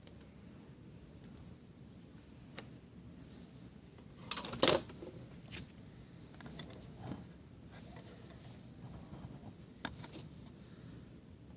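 Small handling noises of bench soldering work: scattered light clicks and scraping, with one louder clatter about halfway through.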